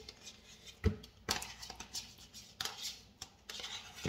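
A metal spoon scraping thick yogurt out of a plastic tub into a plastic mixing bowl: a series of short scrapes and knocks, the sharpest about a second in.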